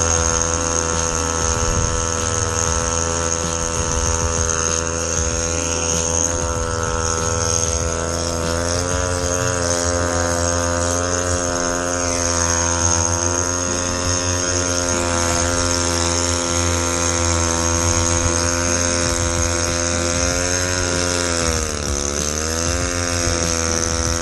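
A motor running steadily, an even pitched drone with a high whine over it; about three quarters of the way through its pitch sags briefly, then recovers.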